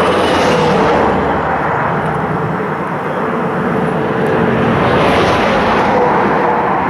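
Steady, loud roar of strong wind blowing over the microphone.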